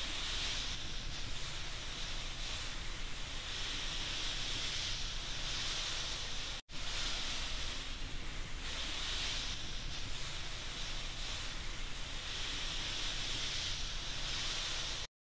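A steady hiss of noise, brightest in its upper middle, swelling and easing every few seconds. It drops out for an instant about six and a half seconds in and cuts off abruptly just before the end.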